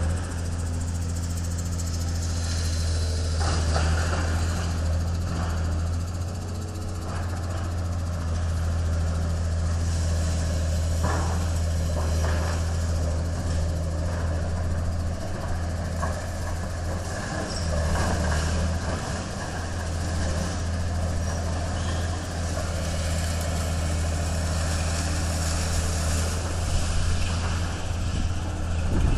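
Diesel engine of a tracked demolition excavator running steadily with a low, even hum.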